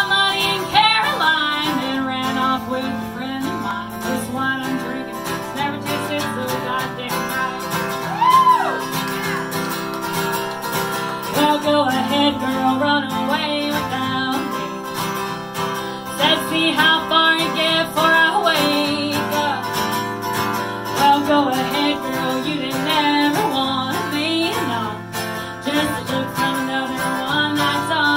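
A woman singing an original honky-tonk country song while strumming an acoustic guitar, the guitar steady throughout and the voice coming in and out between phrases.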